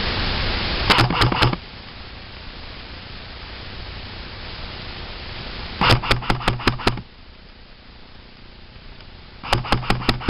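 CYMA MP5K PDW electric airsoft gun firing three short full-auto bursts, its gearbox whirring under a rapid clatter of shots at about seven a second. The bursts come about a second in, at six seconds and near the end, the middle one the longest. A steady hiss at the start cuts off after the first burst.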